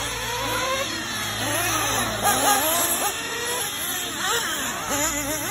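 Several radio-controlled off-road cars racing on a dirt track, their motors whining up and down in pitch as they speed up and slow for the jumps and corners, overlapping one another.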